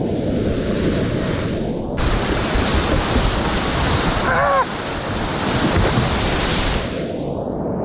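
Whitewater rapids rushing loudly around a kayak, heard close up from a camera on the paddler, with water and wind buffeting the microphone. A brief wavering pitched sound cuts through about halfway.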